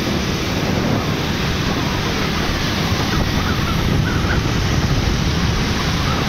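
Wind buffeting the microphone, over the steady rush of traffic and tyres on a wet road while riding along in the rain.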